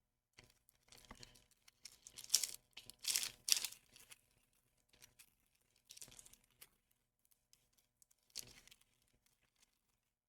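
Pokémon trading card packaging being torn open and crinkled, in irregular rustling bursts that are loudest in the first half, with two shorter bursts later.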